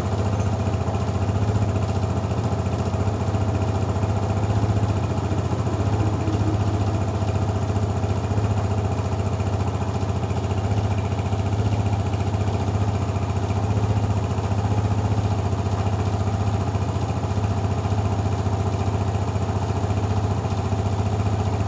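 Air-cooled motorcycle engine idling steadily, its valve tappets freshly adjusted.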